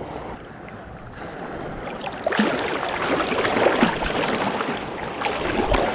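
Shallow seawater sloshing and splashing close to the microphone as a person moves through it, getting louder about two seconds in.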